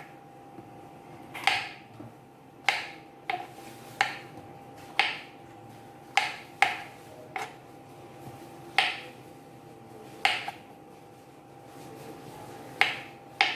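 Kitchen knife slicing through fresh mushrooms onto a cutting board: about a dozen sharp knocks at an irregular pace of roughly one a second.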